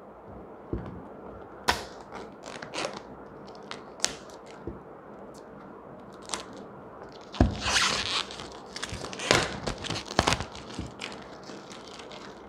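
Clear plastic shrink-wrap being peeled off a small cardboard gadget box and crumpled in the hand. Scattered crackles and clicks come first, then a dense burst of crinkling from a little past halfway to about ten seconds in.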